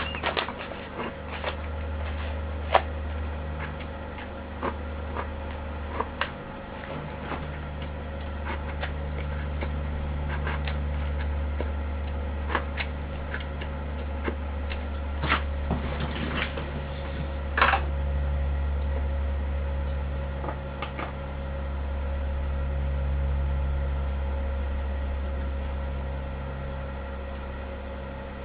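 A steady low machine hum that slowly swells and fades, with scattered sharp clicks and knocks.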